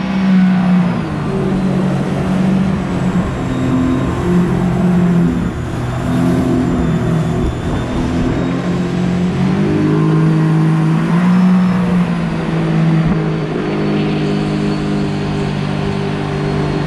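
Jet boat's outboard engine running under way, its pitch rising and falling with the throttle.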